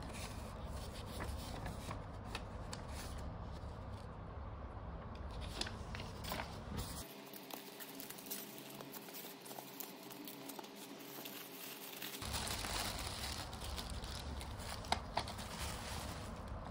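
Plastic packaging crinkling and polystyrene foam inserts rubbing and scraping as they are pulled apart by hand, with many small clicks and rustles.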